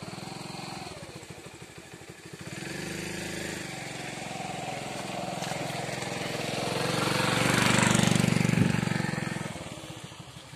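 Tractor engine running steadily, driving a Mitra Mango Master air-blast orchard sprayer through its PTO shaft. A rushing noise swells to its loudest about eight seconds in, then fades.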